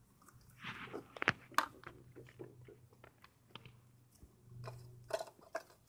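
Light clicks, taps and scraping from spray-paint art tools being handled on a metal refrigerator top, with two sharper clicks a little over a second in, over a faint low hum.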